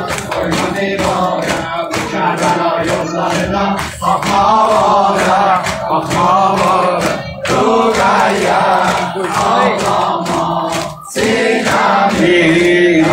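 A group of men and boys chanting a Muharram mourning lament in unison, with rhythmic slaps of hands beating on chests (sineh-zani) keeping time. The chanting breaks off briefly near the end, then resumes.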